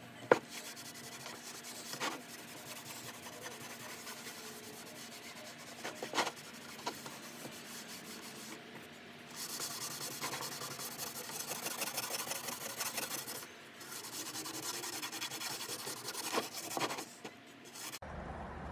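A cloth rag rubbing over a wooden board, then a green abrasive scouring pad scrubbing across the wood, louder and hissier from about halfway through. A few light knocks come in between.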